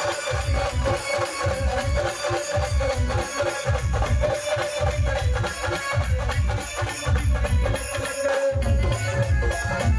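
Pawri-style tribal band music: a heavy, pulsing drum beat under a steady, sustained melody line.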